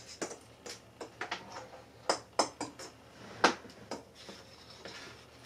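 Scattered light clicks and knocks of craft items handled on a wooden tabletop: a picture frame hung with Christmas ball ornaments set down and a hot glue gun picked up. The sharpest knock comes about three and a half seconds in.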